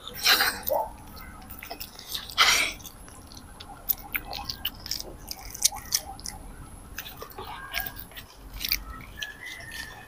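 Children chewing and biting into bread rolls stuffed with pancit canton noodles and boiled egg, picked up close on a clip-on microphone: a run of small mouth clicks and smacks, with two louder bites shortly after the start and about two and a half seconds in.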